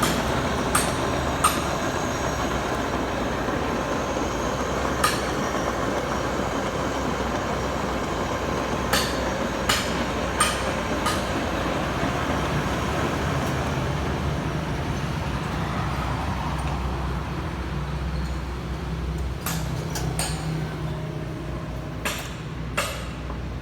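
Okuma radial arm drill running steadily with a low mechanical hum, broken by scattered sharp clicks and knocks.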